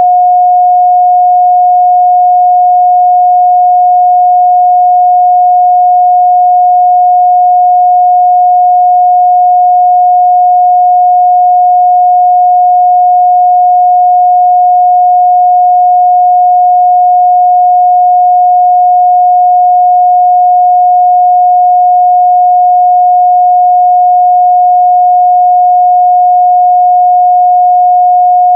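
A steady, unbroken 721 Hz pure sine-wave test tone, one constant mid-range pitch held at an even loud level.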